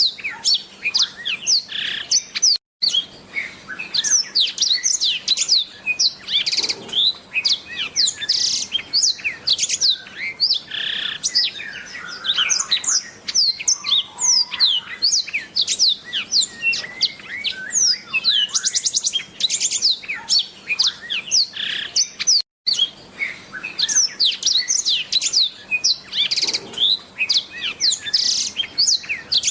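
Black-throated canary (blackthroat) singing a long, fast, unbroken run of high twittering chirps, quick sweeping notes and rapid trills. The sound cuts out completely for an instant twice, about three seconds in and about twenty-two seconds in.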